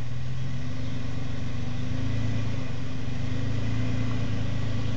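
Toyota FJ Cruiser's 4.0-litre V6 running at low revs as the truck crawls up a steep rock ledge, with the throttle swelling slightly a couple of times.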